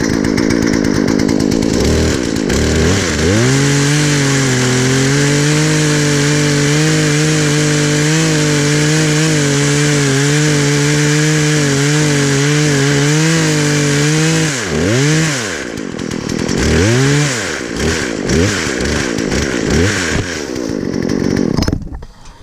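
Chainsaw held at high throttle for about ten seconds, then revved up and down several times before it stops near the end.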